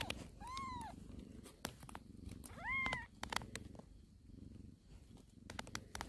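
Newborn kittens giving two short, high mews, each about half a second long and arching up then down in pitch, one about half a second in and one about halfway through. Beneath them a low, steady cat purr runs on, with scattered small clicks.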